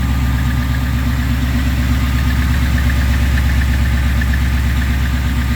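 Ford Gen 3 Coyote 5.0 L V8 idling steadily with a fast, light ticking over the engine note. It runs smoothly on its newly replaced high-pressure fuel pump.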